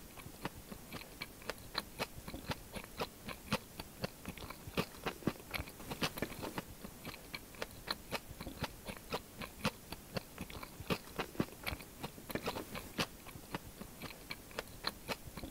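Close-miked chewing of crisp fried food: a steady, irregular run of short crunchy clicks, several a second.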